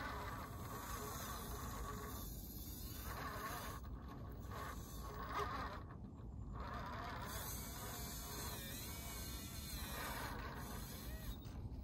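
Axial SCX10 Pro radio-controlled rock crawler climbing a rock face: its Fusion Pro 2300kv brushless motor and geared drivetrain whine in wavering spurts as it is throttled, over a steady low background noise.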